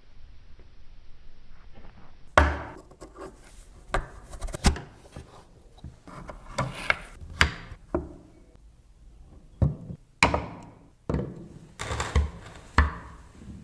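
Hand woodworking on small wooden parts: sharp wooden knocks and clacks with some rubbing between them. They start a couple of seconds in and come irregularly, more than a dozen in all.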